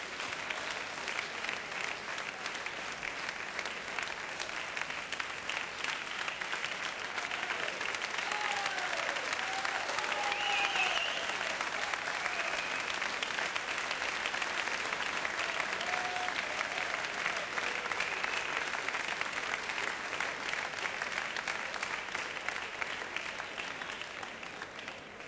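Spectator crowd applauding with dense clapping that swells about ten seconds in, with a few scattered shouts, then fades away near the end.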